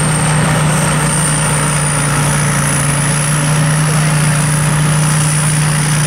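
Sakpattana KM-67 rice combine harvester running steadily while harvesting: a continuous low engine hum with a thin high whine above it.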